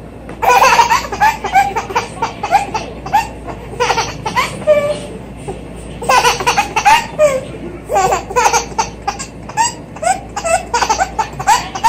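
A baby laughing hard: high-pitched belly laughs in repeated bursts, starting about half a second in, with two short pauses.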